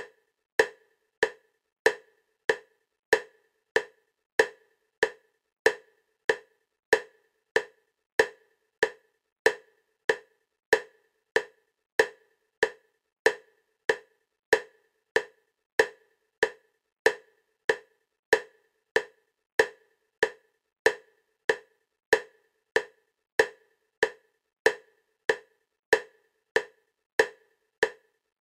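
EMDR bilateral stimulation clicks: short, sharp clicks repeating at a steady 96 beats per minute, about one and a half a second, each with a brief fading tone. The clicks go side to side, alternating between the left and right ears.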